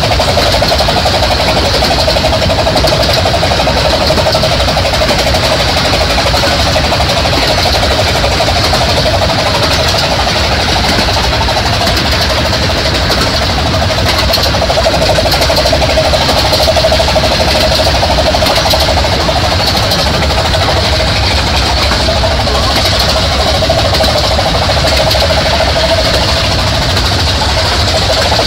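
A 15-inch-gauge miniature railway train running along the track, heard from beside the open coach window: a loud, steady rumble of the wheels on the rails.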